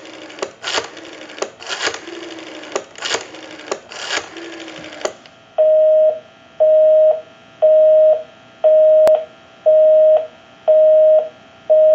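Western Electric 302 rotary dial being turned and running back, its pulses heard as rapid clicks over the line for about five seconds. A busy signal follows: a two-note tone sounding for half a second and pausing for half a second, seven beeps, showing the dialled line is engaged.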